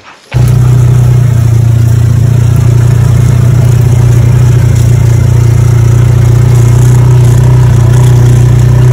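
Loud, steady low engine drone of a motor vehicle running, starting abruptly just after the beginning.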